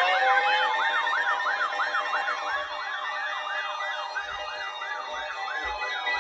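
Electronic siren sounding: a fast yelp sweeping up and down about three times a second over a slower wail that rises and then holds.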